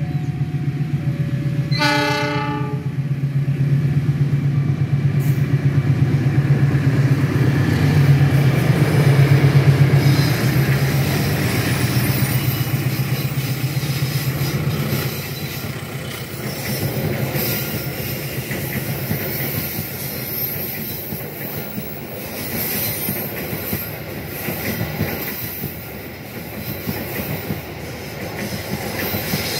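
Diesel-electric locomotive giving a short horn blast about two seconds in, then its engine drone growing loud as it passes close by. From about halfway on, the coaches roll past with wheels clattering over the rail joints and a high hiss from the running gear.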